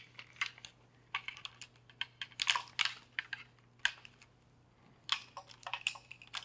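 Peak Design Travel Tripod's carbon-fibre legs being handled and their cam leg locks flipped open, an irregular run of small clicks and clacks.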